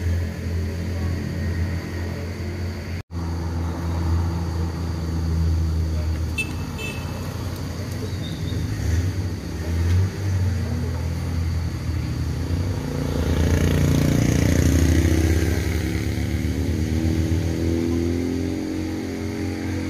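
Road traffic passing: a motorcycle engine running close by at first, then a car approaching and going past, loudest about two-thirds of the way through. The sound cuts out for an instant about three seconds in.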